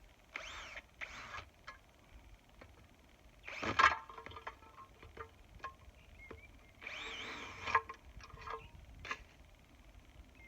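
Bosch cordless drill running in short bursts, its motor pitch rising and falling: two brief runs in the first second and a longer run about seven seconds in. A sharp knock about four seconds in, with small clicks between.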